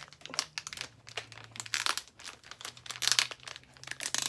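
Plastic packaging crinkling and rustling, with irregular clicks and crackles from handling.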